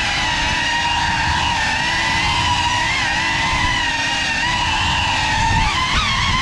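GEPRC CineLog 35 cinewhoop's brushless motors and ducted propellers whining steadily, the pitch wavering with the throttle and wobbling quickly up and down near the end.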